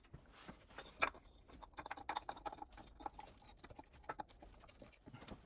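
Faint, irregular clicks and knocks of a water pump being handled and pushed into its housing on a Land Rover Td5 engine, metal tapping on metal.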